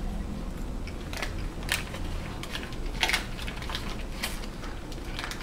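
Person eating a soft pretzel from its paper wrapper: scattered short crinkles and crackles of the paper and chewing noises, the loudest about three seconds in, over a low steady hum.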